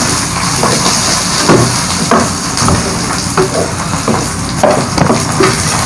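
Chicken feet and onion masala sizzling in a hot wok at the browning (bhuna) stage, with a spatula scraping and clacking against the pan every second or so as it is stirred.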